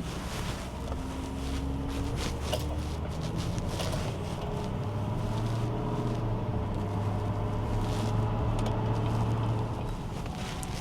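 Vehicle engine running while driving, a steady low hum that steps up in pitch about four seconds in and drops back near the end, with road and wind noise.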